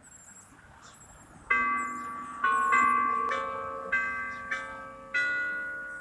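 Church bells striking a tune at noon: after a faint first second and a half, about seven single strikes of different pitches follow each other at roughly half-second to one-second spacing, each ringing on and fading under the next.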